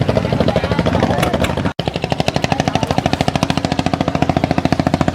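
Small engine running with a rapid, even knock, with a short cut-out just under two seconds in before it carries on.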